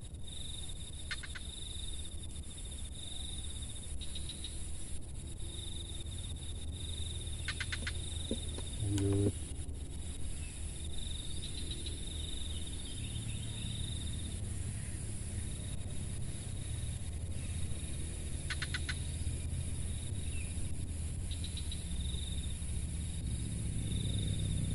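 Insects calling: a high continuous trill that stops and starts, with a few short runs of rapid clicks. A brief low call sounds once, about nine seconds in.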